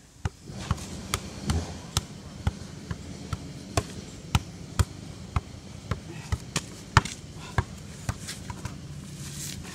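A ball being juggled with the left foot from a sitting position: sharp taps of the shoe against the ball, about two a second. Near the end the run breaks off, with a few softer, quicker knocks as the ball falls to the ground.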